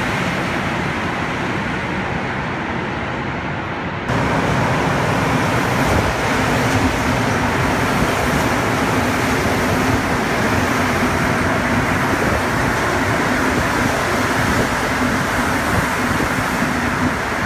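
Rubber-tyred Montreal Metro train running through a station, a steady hum and rumble. About four seconds in it jumps louder as the sound switches to close beside the passing cars.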